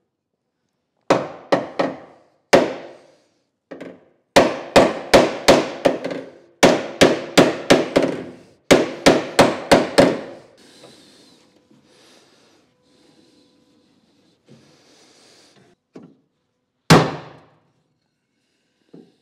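Hammer blows on the MGA's rear body panel, straightening crash damage. A few single strikes, then three quick runs of about five blows each at two to three a second, a lull, and one last hard blow near the end.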